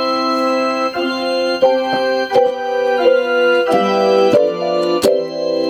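Casio LK-280 electronic keyboard playing a tune in an organ-like voice. Held chords change to new notes about every half-second to second, with a light click at each change.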